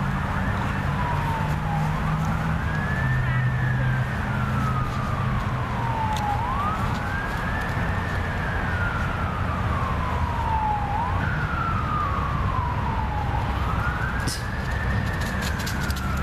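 An emergency vehicle's siren wailing, its pitch rising quickly and then falling slowly, about once every four seconds, over a steady low hum.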